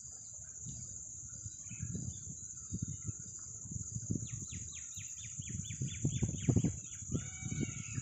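Indian peafowl calling: a rapid run of short repeated notes begins about halfway through and changes to longer held notes near the end. Under it runs a steady high buzz of crickets.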